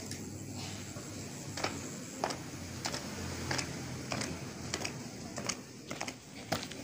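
Shoes of a small group marching in step on a paved courtyard, crisp footfalls about every 0.6 s, starting a little over a second in.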